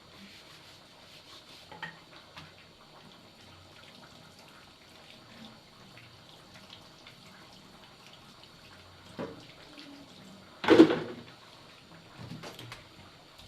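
Kitchen sink sounds: faint running water with small clinks, then one loud sharp clatter a little over ten seconds in, followed by a few lighter knocks.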